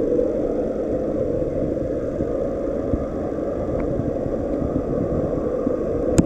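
Steady, muffled low rumble of aerated, circulating water in a fish tank: air bubbles and pumped flow, heard with the camera under the water. Two sharp knocks near the end.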